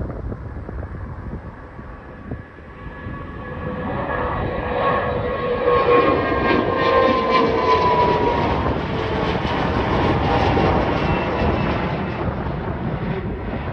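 Twin rear-engined regional jet climbing out after takeoff and passing nearly overhead. Its jet engine noise swells from about three seconds in, with a falling whine as it goes past, and stays loud to the end.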